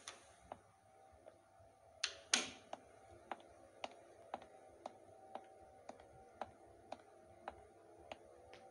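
Hard-soled dress shoes walking at an even pace across a wooden floor, about two steps a second, after a door shuts with a knock about two seconds in. A faint steady hum runs underneath.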